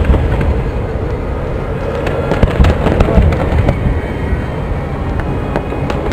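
Fireworks display: dense crackling and popping without a break, with several heavier low booms, the loudest right at the start and again about two and a half to three seconds in.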